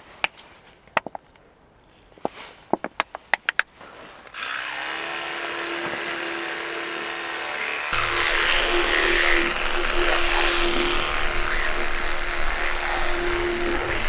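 A few quick clicks and taps of handling, then about four seconds in an electric toothbrush switches on and runs with a steady hum. From about eight seconds the hum is louder, with the brush working in the mouth, and a low rumble runs beneath it.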